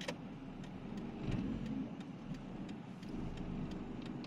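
Car engine running, heard from inside the cabin, with scattered light ticks throughout.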